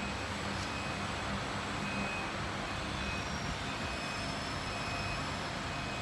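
Steady workshop machinery hum with a low drone, and faint short high-pitched beeps now and then.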